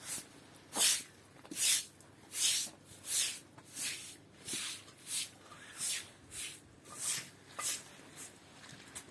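Rhythmic scraping strokes, each a short hiss, repeating steadily a little faster than once a second.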